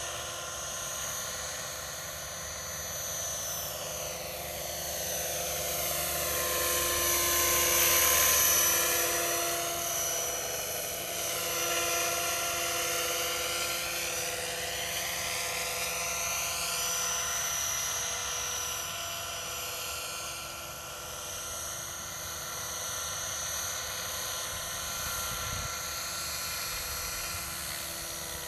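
Scale MD 500D radio-controlled helicopter in flight: a steady high whine of motor and rotors that swells to its loudest as the helicopter passes close about eight seconds in.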